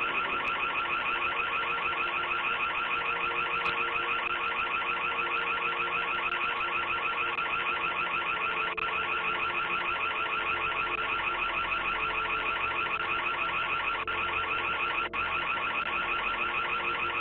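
Electronic alarm siren sounding continuously: a loud, rapidly pulsing high tone that does not let up.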